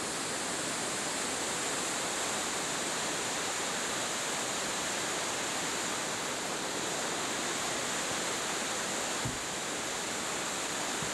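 High floodwater rushing steadily through a diversion dam's intake canal and over its spillway, an even, unbroken wash of churning water, with one brief low bump about nine seconds in.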